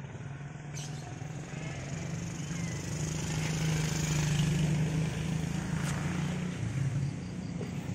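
Small van's engine running at low speed, a steady low hum that swells to its loudest about halfway through and eases off near the end.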